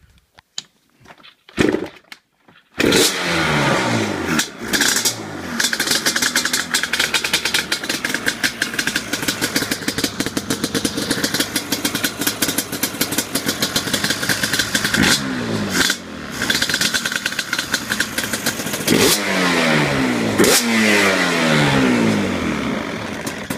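Yamaha Banshee's twin-cylinder two-stroke engine starting: a couple of brief firings, then it catches about three seconds in and runs. It is blipped several times, with the revs falling back after each blip, before dying away at the end.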